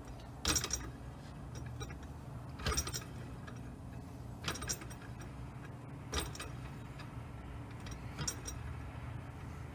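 Metal parts on a threaded rod clinking now and then, about every two seconds, as a nut tool is threaded down all-thread held in a vise. A low steady hum runs underneath.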